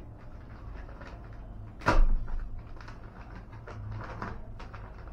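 Brown paper delivery envelope rustling and crinkling as it is opened by hand, with one much louder sharp crackle about two seconds in.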